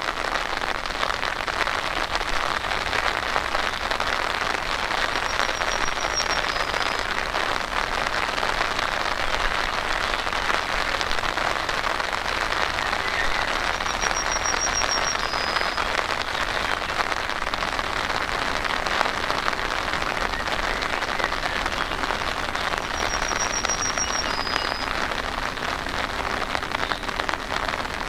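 Steady rain falling, an even hiss that does not let up. A short, high, rapid trill followed by a lower note sounds three times, about nine seconds apart.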